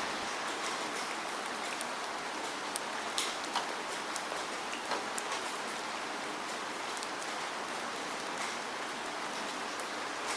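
Steady rainfall: an even hiss of rain with scattered close drops ticking sharply on a surface, a few of them louder around three to five seconds in.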